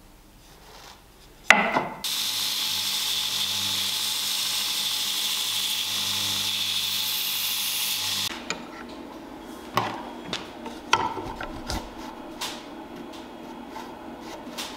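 Narrow bench belt sander running steadily for about six seconds as a small flat part is ground against its belt, after a sharp knock, and then stopping abruptly. Several light clicks and knocks follow as parts are handled on the bench.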